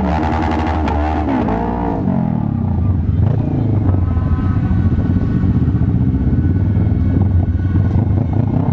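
Motorcycle engine running while riding in a crowd of motorbikes, most likely the rider's own Kawasaki Vulcan S 650 parallel-twin. For about the first two seconds the pitch rises and falls repeatedly, then it settles into a steady low drone.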